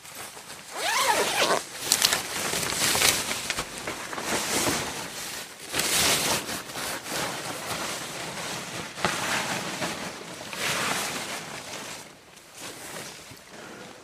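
Protective radiation suit being handled: its fabric rustles and rasps like a zipper in a run of irregular bursts, fading out near the end.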